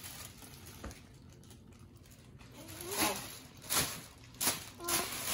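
Tissue paper rustling as it is pulled from a gift bag, in several short bursts over the last couple of seconds, with a few soft wordless vocal sounds among them.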